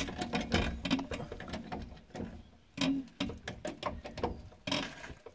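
Car jack being worked to lift a Peugeot Partner van: a run of quick, irregular metallic clicks with a short pause about halfway.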